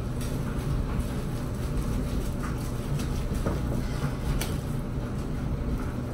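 Steady low rumble of a running laundry machine, with a few faint crinkles and a snap from a black disposable glove being pulled on about two to four seconds in.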